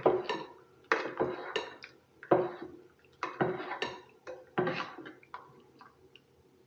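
A spoon stirring soup in an Esbit stainless-steel food thermos. It clinks and scrapes against the metal walls in repeated strokes that die away near the end.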